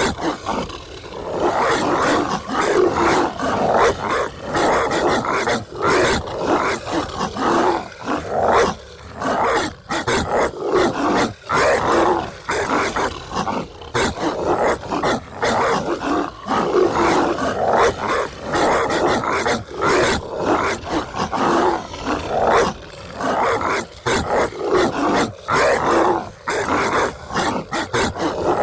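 Dogs snarling, growling and barking harshly as a 'zombie dog' sound effect, one rough bark or snarl after another with hardly a pause.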